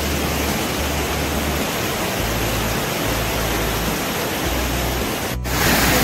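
Large waterfall cascading over rock steps: a steady, dense rush of falling water. It cuts out for an instant near the end and comes back slightly louder.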